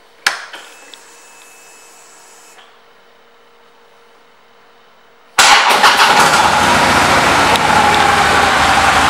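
A click, then a faint steady high whine from the 2015 Harley-Davidson Electra Glide Ultra Classic Low's electrics for about two seconds after the ignition is switched on. About five seconds in, its V-twin engine starts suddenly and runs at a loud, steady idle.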